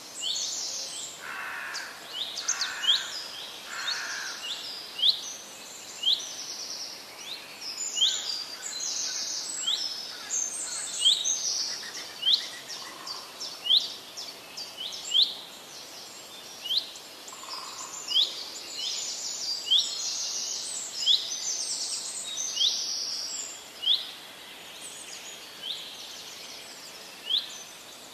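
Small birds chirping over a steady hiss, with short, sharp, high calls repeating about once or twice a second.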